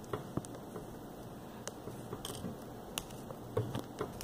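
The eraser end of a pencil being twisted in a small handheld plastic pencil sharpener: faint scraping with scattered small clicks.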